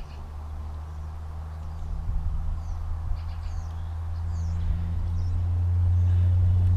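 Low rumble of road traffic on the bridge overhead, swelling to its loudest near the end as a vehicle crosses. Short bird chirps come over it in the middle.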